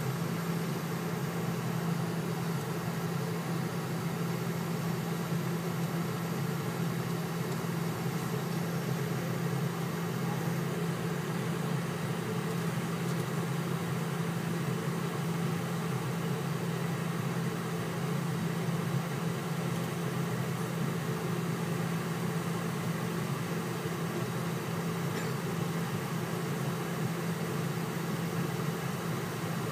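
Steady cabin noise inside a jet airliner on the ground with its engines at idle: an even low drone under a constant hiss, with no spool-up.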